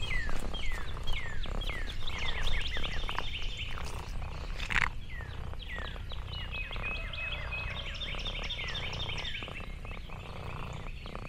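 A chorus of many small wild animal calls: short, high chirps that slide downward, several a second, overlapping one another over a steady low rumble.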